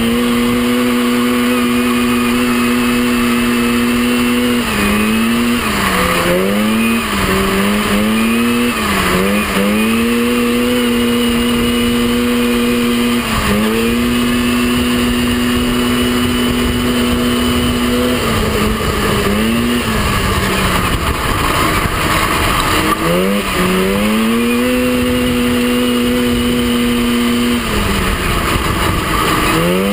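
Mini off-road racing buggy's engine heard from on board. It holds high, steady revs on the straights and dips briefly several times as the throttle is lifted for turns, then climbs back up.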